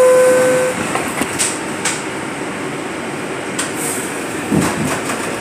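R62A subway car door chime ending on its lower tone for about half a second, then a few short knocks as the doors shut, over the steady noise of the standing train just before it pulls out.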